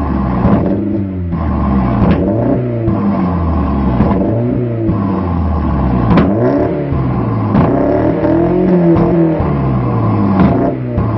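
A 1.8-litre car engine revved hard over and over through a loud exhaust, its pitch sweeping up and falling back about every one to two seconds. Several of the revs end in sharp cracks as the exhaust backfires, shooting flames from the tailpipe.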